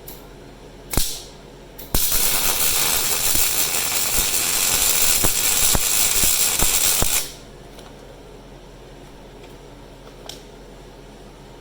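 A hand-held shop tool, likely air-powered, runs in one burst of about five seconds: a loud hiss with rattling clicks through it. A short click and hiss comes just before it.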